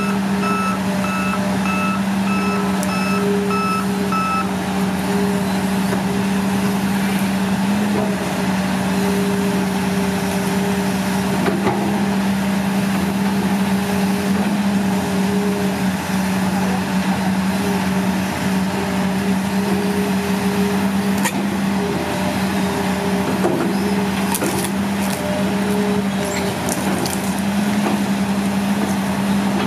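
Hitachi ZX200 excavator's diesel engine running steadily under hydraulic load as the boom and bucket push over a tree. Its travel alarm beeps repeatedly for the first few seconds, and a few sharp cracks come near the end as the roots tear out of the ground.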